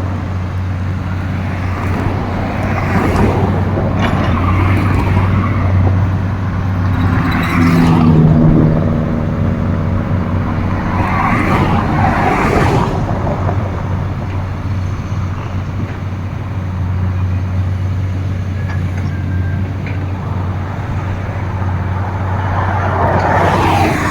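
Hydraulic excavator's diesel engine running steadily, with several louder swells of noise as it works under load.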